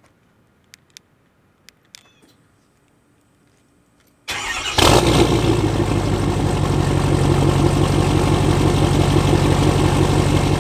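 Ford F-250 Super Duty diesel engine remote-started, heard at its dual exhaust tips: a few faint clicks, then a little past four seconds in it cranks, catches with a loud burst and settles into a steady idle.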